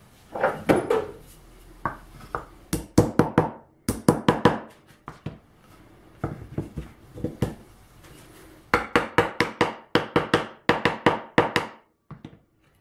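Wooden mallet tapping plywood pieces together over wooden dowels: several quick runs of sharp wooden knocks, the longest run near the end.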